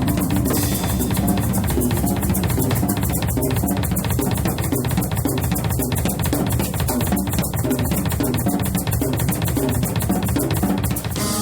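Live band playing an instrumental passage: a drum kit with steady, rapid cymbal strokes drives the beat over bass and keyboard.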